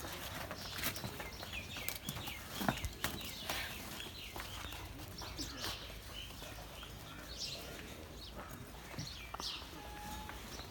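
Farmyard sounds: small birds chirping over scattered clicks and knocks, such as hooves and handling around penned cattle.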